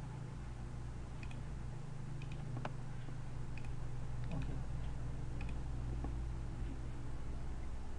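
Scattered light clicks of a computer mouse and keyboard, a dozen or so at irregular intervals, as code is copied and pasted, over a steady low electrical hum.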